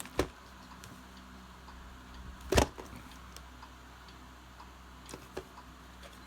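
A plastic VHS tape case being handled: a few sharp clicks and knocks, the loudest about two and a half seconds in, over a faint steady hum.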